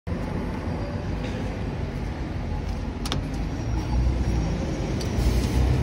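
Street traffic noise: a steady rumble of passing vehicles that grows louder near the end, with a single sharp click about three seconds in.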